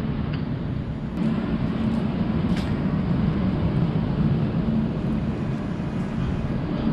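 Belgian coastal tram standing at the platform, its onboard equipment humming steadily over a low rumble, with a few light clicks.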